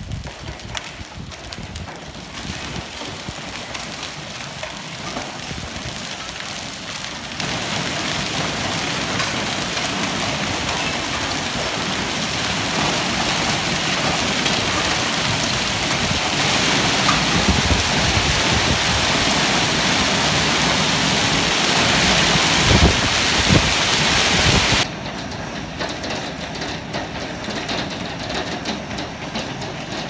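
Hail and rain pelting a concrete driveway and gravel in a windy hailstorm. The hiss grows heavier in steps, with gusts of wind rumbling on the microphone at its loudest. Near the end it drops suddenly to a lighter patter.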